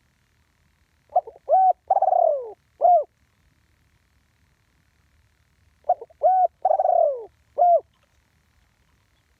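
Spotted dove cooing: two calls about five seconds apart. Each call has four notes, the third longer and falling in pitch, and ends on a single short 'kuk'.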